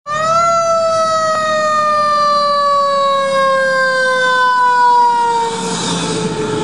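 Fire engine's siren sounding as the truck passes close by, one long tone falling slowly in pitch, starting abruptly just after the beginning. Near the end it drops a little in level and pitch as the truck goes by, with the hiss of tyres on the wet road.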